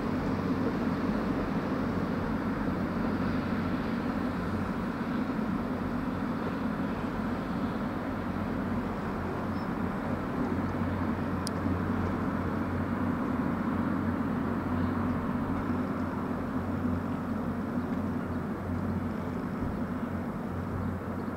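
Irish Rail 29000 class diesel multiple unit running, a steady diesel engine drone with a low hum that holds throughout.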